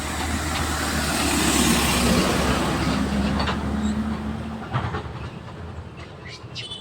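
A passing vehicle: a steady rumbling noise that swells to a peak about two seconds in, then slowly fades, with a few short clicks as it dies away.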